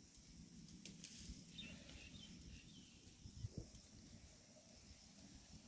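Near silence: faint outdoor background with a low rumble and a few soft clicks.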